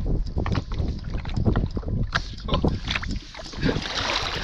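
Wind rumbling on the microphone, with choppy water slapping a sit-on-top kayak's hull in short, irregular knocks.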